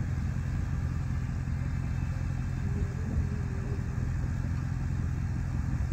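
Jeep Grand Cherokee WJ engine idling steadily, a low even rumble.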